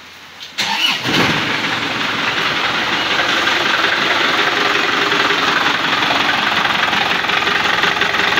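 Isuzu Panther LM diesel engine cranked and starting a little over half a second in, then running at idle, rough and loud. The mechanic suspects badly worn timing gears and very worn engine mounts behind the roughness.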